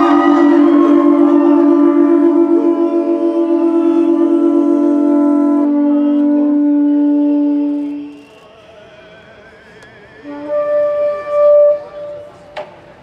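Conch shells (pū) blown together, sounding two long steady notes a little apart in pitch that fade out about eight seconds in. A shorter, higher conch blast sounds near the end.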